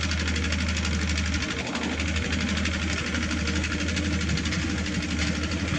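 Diesel engine of heavy earthmoving equipment (excavator or dump truck) running steadily, with a fast, even knock.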